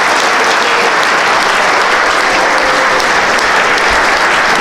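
An audience applauding steadily after a speech.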